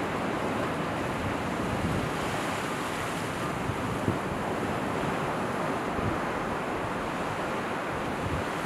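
Sea and wind ambience: a steady wash of waves with wind rumbling underneath.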